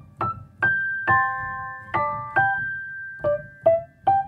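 Keyboard music: a slow melody of struck single notes and chords, each ringing out before the next.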